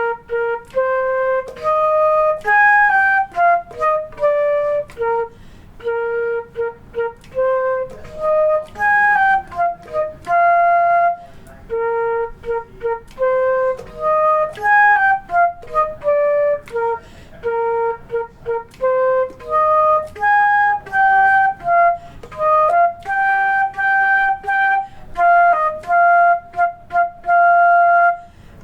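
Solo flute playing a simple melody: a single line of separate tongued notes in the flute's lower-middle range, phrased with short breaths between. It is a slowed practice run of a beginner band piece, without accompaniment.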